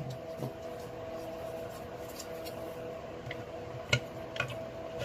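Porter-Cable QuickSand random orbital sander running steadily with a humming tone, a few light clicks near the end. It is not yet fully reassembled and doesn't sound right.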